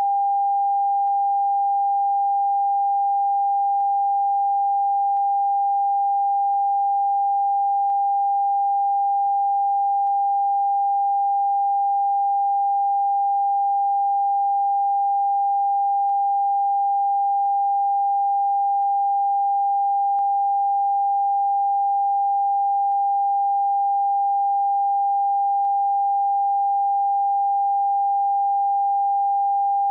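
Television test-card tone: a single steady sine tone held at one pitch without a break, the tone that accompanies the test card when a station has ended its broadcast.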